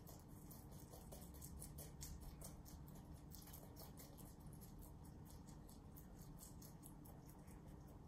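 Rabbits chewing crisp leafy greens (cilantro and napa cabbage): faint, rapid crunching clicks, several a second, keeping on without a break.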